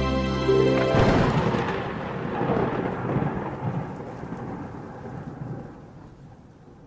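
A deep rolling rumble like thunder. It starts suddenly about a second in, as the music cuts off, and dies away slowly over the next several seconds.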